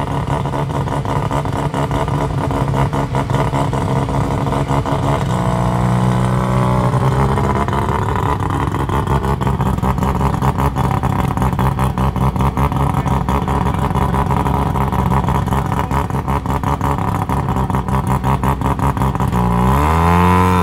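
Mazda RX3's rotary engine idling with a rapid, choppy, pulsing exhaust as the car crawls past. Engine revs rise briefly a few seconds in and again near the end.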